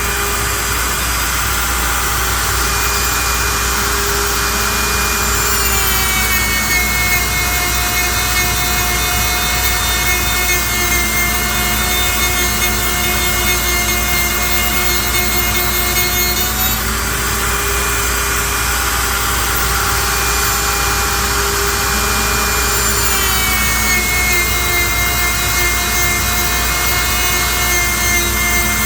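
CNC lathe turning a curly maple blank for a cue butt sleeve: a steady motor and spindle whine over the hiss of the cutter taking wood. The whine steps down in pitch about six seconds in, back up around seventeen seconds, and down again near the end.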